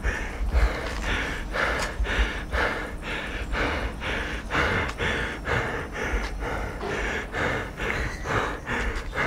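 A person breathing quickly and audibly, about two short breaths a second, over a low rumble.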